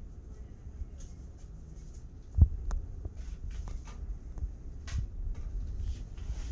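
Low steady hum of a small room with a few light clicks and one sharp knock about two and a half seconds in.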